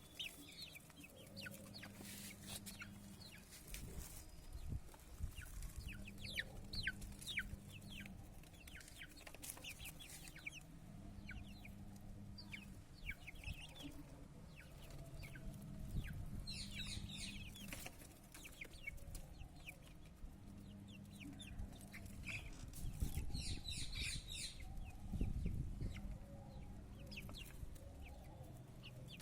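Domestic chickens clucking, with many short high falling peeps from chicks scattered throughout. A low hum comes and goes underneath.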